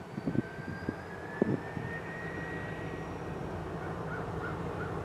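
EMD SD40-2 and SD40-3 diesel locomotives, turbocharged 16-cylinder engines, running and revving up under load as the train pulls away, with a turbocharger whine rising in pitch over the first two seconds. A few sharp knocks sound in the first second and a half, the loudest about a second and a half in, and crows caw faintly near the end.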